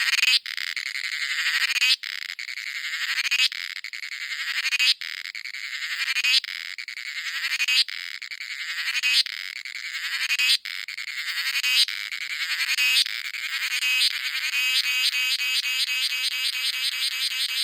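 Cicada singing in repeated phrases about every second and a half, each one swelling and then breaking off sharply. Near the end the song changes to a steady, rapid pulsing.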